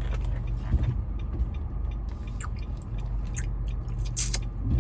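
Steady low rumble of a vehicle running, heard from inside the cabin, with scattered light clicks and ticks.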